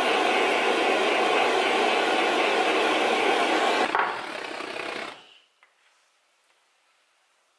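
Handheld gas blowtorch flame running with a steady hiss as it chars a chestnut wood handle. The hiss weakens about four seconds in and dies away about a second later, leaving near silence.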